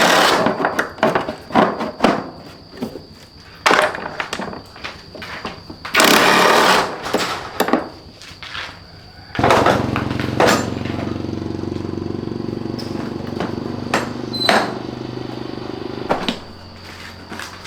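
Workshop noises: several short noisy bursts, then a small motor runs steadily for about seven seconds and cuts off abruptly.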